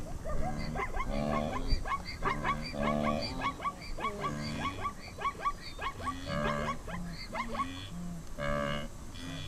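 A large herd of wildebeest calling, with many overlapping grunting calls from different animals, some louder and nearer than the rest.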